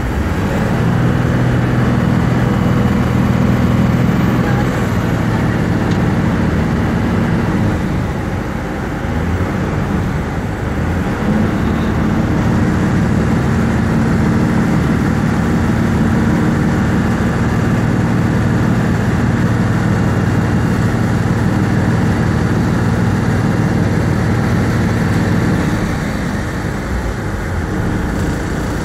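Airport apron bus's engine running steadily, heard from inside the cabin as it drives across the tarmac; it eases off for a few seconds about a third of the way in and drops lower a few seconds before the end.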